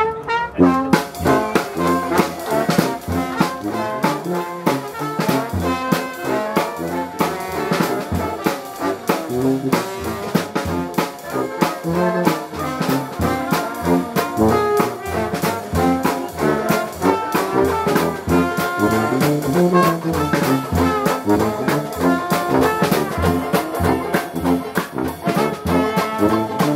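Live Dixieland jazz band playing, with the brass, tuba included, leading over a steady beat.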